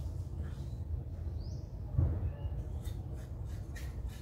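Steady low background rumble with a couple of faint, short high chirps, typical of birds, and a single soft thump about halfway through, followed by a few light clicks.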